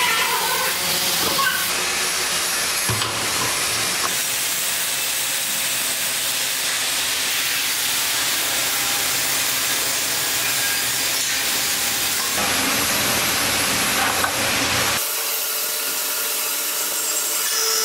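Horizontal metal-cutting band saw cutting a steel square tube under coolant: a steady hissing noise. The sound changes abruptly a few times.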